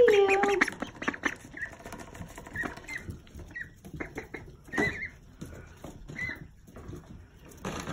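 Ducklings giving short high peeps scattered through, over soft pattering and clicking in wood shavings. A louder wavering call opens it.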